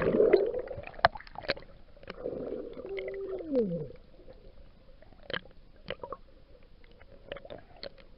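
Sea water gurgling and sloshing, muffled by a waterproof camera case, with scattered sharp clicks and a short falling squeal about three and a half seconds in.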